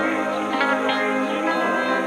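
Background music: soft new-age style tune with plucked notes over sustained tones.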